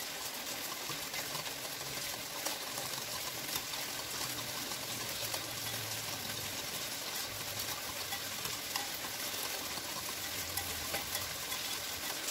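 Stainless wire whisk stirring a thin sauce in a ceramic bowl, the wires ticking lightly and often against the bowl over a steady hiss.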